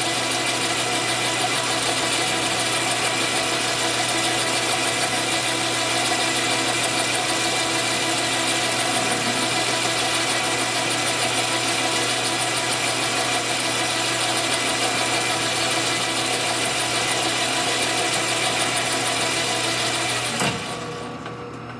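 Gear-head metal lathe running steadily while a boring bar cuts a bore in a part held in the chuck. Near the end there is a click as the lathe is switched off and the running sound drops away.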